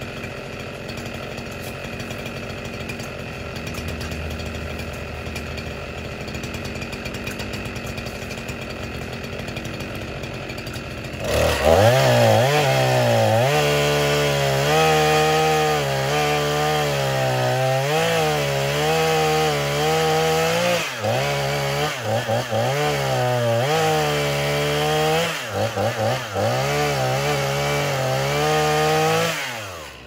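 Echo CS501P two-stroke chainsaw idling, then opened up to full throttle about eleven seconds in and cutting through the base of a Dawn redwood trunk to fell it. Its pitch dips briefly a few times during the cut, and it drops back to idle near the end.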